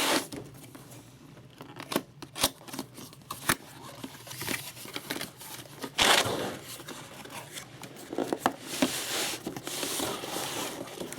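Cardboard box and packaging of a graphics card being handled and opened: a few sharp taps and knocks, then bouts of rustling, scraping and crinkling.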